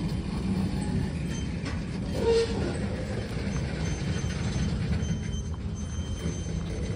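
Train rumbling steadily, with a brief louder tone about two seconds in.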